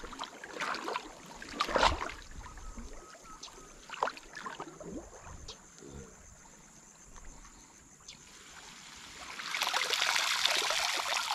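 Cast net in a shallow pool of water: a few scattered small splashes and knocks, then, about nine seconds in, a swelling rush of water pouring and dripping as the net is hauled up.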